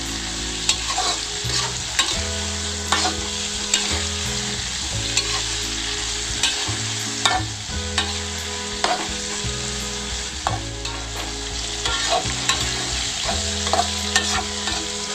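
Tofu, shallots, garlic and chillies sizzling in oil in a wok while a metal spatula stirs them, with irregular scrapes and clacks of the spatula against the pan.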